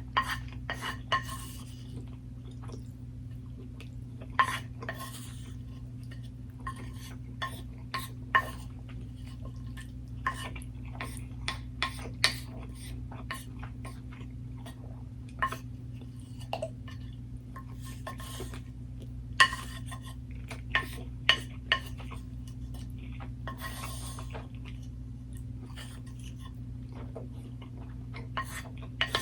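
Metal cutlery clinking and scraping against dishes at irregular intervals, a few clinks ringing briefly, over a steady low hum.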